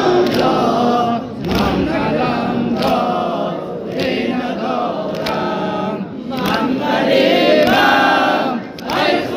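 Voices singing a nawha, a Shia mourning lament, together in chorus, in long sung phrases with short breaks between them.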